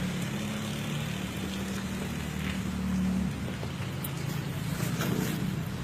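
A vehicle engine idling with a steady low hum over a hiss of street noise; the hum drops away about three seconds in.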